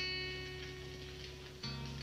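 Background music: guitar strumming chords, one struck at the start and a new one about a second and a half in, each ringing out and fading.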